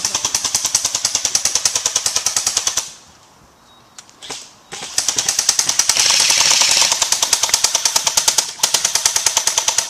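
Airsoft electric guns (AEGs) firing on full auto, a fast mechanical rattle of many shots a second. A burst of about three seconds, a short pause, then a longer burst of about five seconds.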